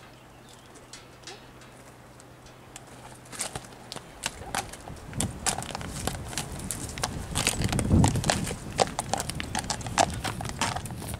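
Hoofbeats of a heavy feathered horse walking on a gravel drive, mixed with a person's footsteps as it is led. The steps start about three seconds in and get louder and closer, loudest about two-thirds of the way through.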